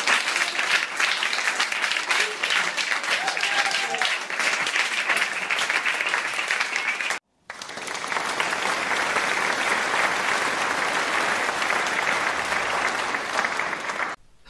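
Audience applause, a dense crackle of many hands clapping with a few voices calling out in the first stretch. It cuts off about seven seconds in, and after a brief silence a second round of applause swells in and runs on until just before the end.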